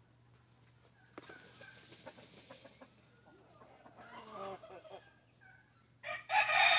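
Silver Laced Wyandotte chickens clucking softly, then a rooster breaks into a loud crow near the end.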